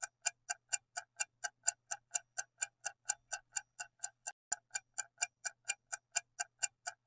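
Clock-style ticking sound effect, even and steady at about four ticks a second, counting down the time to answer a quiz question.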